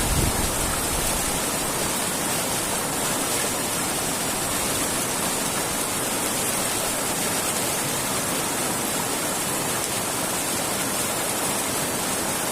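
Steady rushing of running water, an even noise with a strong hiss and no rhythm. A brief low rumble comes right at the start.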